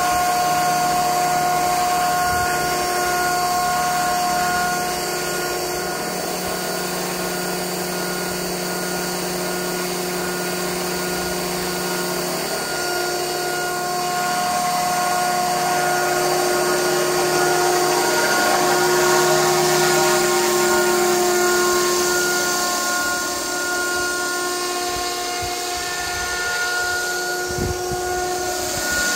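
Electric RC helicopter (Align T-Rex 500 in an EC 135 scale body with a four-blade rotor head) running, a steady high motor and gear whine with rotor noise; the tones shift partway through as it lifts off from the pad and flies.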